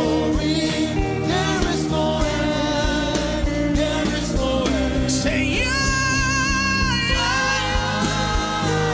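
Gospel worship music: a single voice sings a wordless, bending melodic line, holding one long note past the middle, over sustained instrumental chords.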